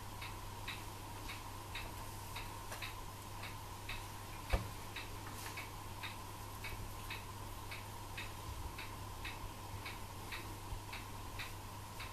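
Regular ticking, about two ticks a second, over a steady low hum, with a single thump about four and a half seconds in.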